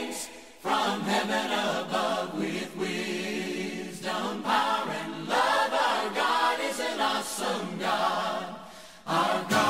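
Background music: a choir singing in long phrases, with short breaks just after the start and about nine seconds in.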